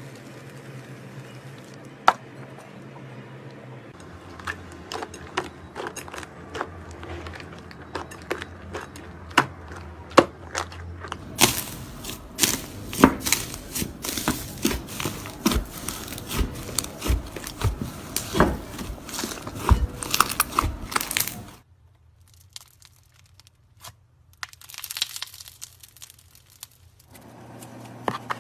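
Hands playing with slime, making many crisp crackling clicks and pops. They start sparse, grow dense and loud in the middle, then thin out into a quieter stretch with a few more pops near the end.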